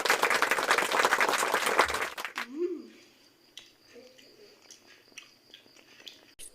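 Loud, dense crackling close to the microphone for about two and a half seconds, then quieter scattered clicks and chewing sounds of someone eating a donut.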